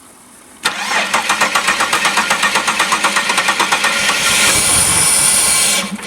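Car engine cranked over by the starter motor with a rapid, even pulsing for about three seconds, then catching and running briefly before cutting out just before the end. It starts with half its spark plug leads off and the intake disconnected from the MAF sensor.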